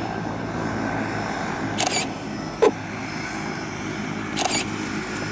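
Steady drone of a distant propeller aircraft engine, with a sharp click about two and a half seconds in and two brief rustles.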